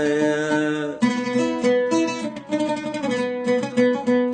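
The last held note of a mawaliya folk-song line, dying out about a second in, then a plucked string instrument playing a melodic interlude of short, separate notes.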